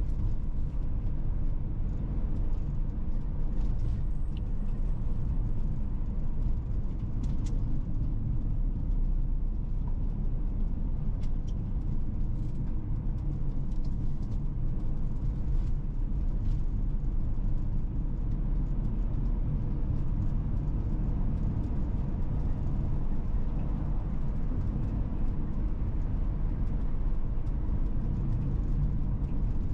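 Car driving at steady speed: a continuous low rumble of road and engine noise, with a few faint clicks.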